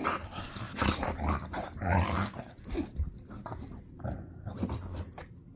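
Pit bull–boxer mix puppy growling and scuffling on a sofa in a playful frenzy, a burst of zoomies.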